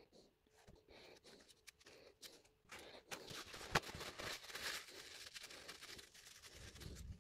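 Faint handling noise: light rustles and taps at first, then a denser rustling from about three seconds in, with one sharp click just after that.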